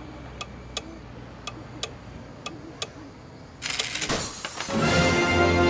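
Cartoon clock ticking in a steady tick-tock over a low hum, then a sudden loud burst of noise about three and a half seconds in, as the clock face cracks. Music starts about a second later.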